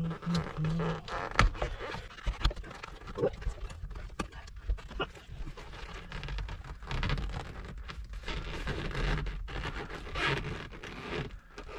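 Irregular clicks, knocks and scrapes of hands and a tool working a van seat's armrest at its pivot, pushing and twisting it to free it. A brief low grunt near the start.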